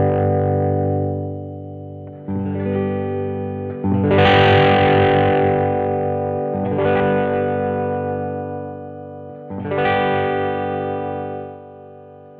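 1982 Vantage VE-550 electric guitar with a distorted tone: four chords struck a few seconds apart, each left to ring out and fade.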